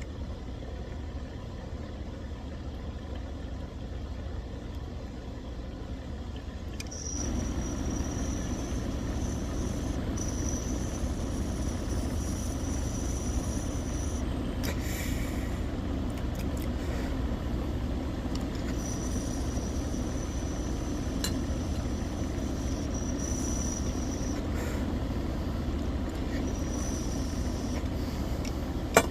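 MJ Arsenal Atlas mini dab rig bubbling steadily as a long hit is drawn through its water, starting about 7 seconds in, with a thin high whistle of air coming and going. A sharp click near the end.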